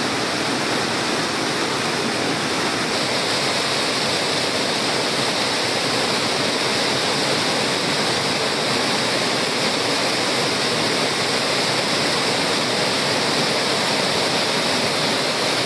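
Waterfall cascading over rocks: a steady, unbroken rush of falling water.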